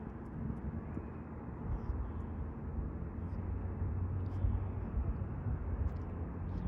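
Steady low outdoor rumble, a little stronger in the second half, with a few faint light ticks.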